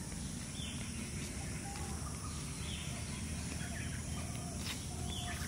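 Outdoor woodland ambience: a steady low background noise with a few faint, short bird calls scattered through.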